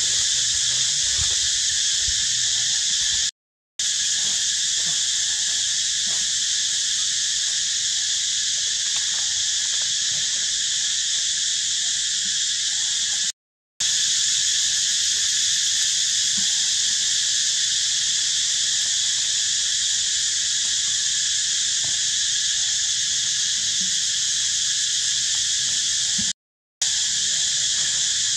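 Dense, steady high-pitched drone of a forest insect chorus, broken by three brief gaps of silence.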